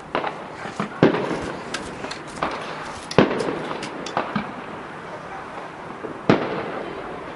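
Aerial fireworks shells bursting in irregular bangs with crackling between them, the loudest bangs about three seconds in and again about six seconds in.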